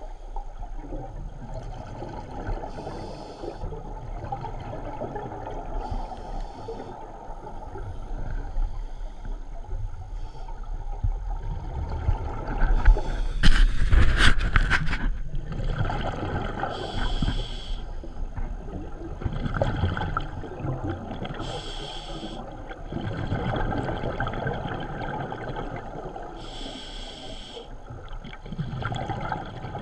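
Scuba diver breathing through an open-circuit regulator, heard underwater through a camera housing: a hiss on each inhale about every five seconds, and a low bubbling rumble of exhaled bubbles between. About halfway through comes a loud burst of sharp knocks and rushing bubbles.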